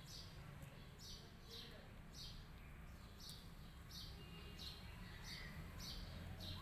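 A small bird calling faintly, short falling chirps repeated a little under twice a second.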